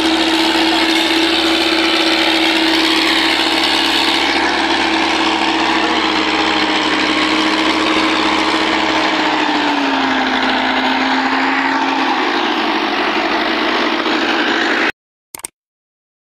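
Diesel tractor engine running steadily under heavy load as it hauls an overloaded sugarcane trolley with its front wheels off the ground. Its note drops slightly about ten seconds in, and the sound cuts off abruptly about fifteen seconds in.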